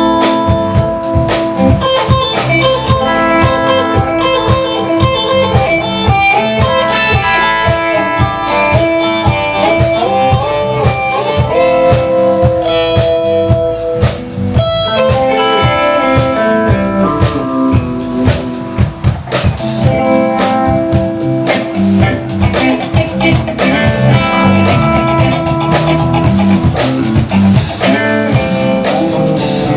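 Live blues band playing an instrumental passage: electric guitar picking melodic lines over electric bass and a drum kit keeping a steady beat.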